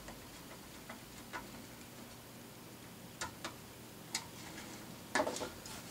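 Scattered light clicks and ticks of a small screwdriver and screw working inside a plastic model car body, with a louder rustle of handling the parts about five seconds in.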